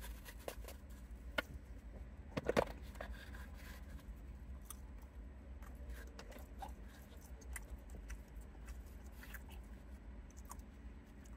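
A man biting into and chewing a shuco (Guatemalan hot dog) close to the microphone: soft mouth and bun sounds with scattered small clicks, and a louder cluster of clicks about two and a half seconds in, over a low steady rumble.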